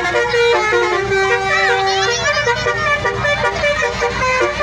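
Indonesian 'telolet' bus horn, a multi-tone musical horn, playing a tune of held notes that step from pitch to pitch, with people shouting over it.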